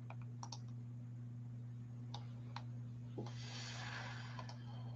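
A few scattered light clicks of a computer keyboard and mouse, over a steady low electrical hum, with a soft breath out about three seconds in.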